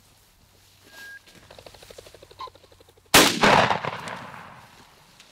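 A single shotgun blast about three seconds in, fired at a flushed game bird, echoing away over the next second and a half. Before it come a short high beep from a dog's beeper collar and a rapid fluttering rattle.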